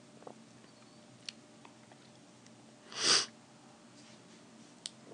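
Quiet room tone of the voiceover recording, with one short, sharp breath at the microphone about three seconds in. Two faint clicks come before and after it.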